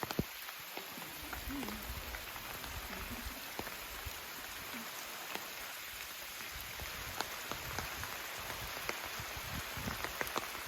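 Rain falling: a steady patter with many individual drops ticking close to the microphone.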